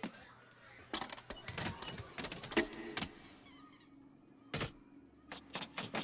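Foley sound effects of a small toy doll running and climbing: a run of quick taps and scuffs, one louder knock about four and a half seconds in, then more rapid taps near the end, over a low steady hum.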